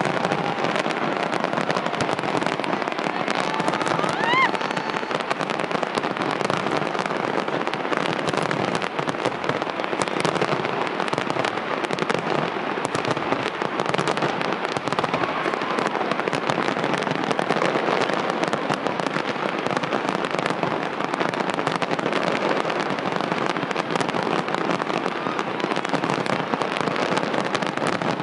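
Large aerial fireworks display: a continuous barrage of crackling and popping bursts with sharp bangs, unbroken throughout.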